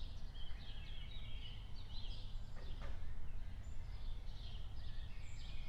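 Birds chirping and singing in many short, high calls over a steady low background rumble of outdoor ambience.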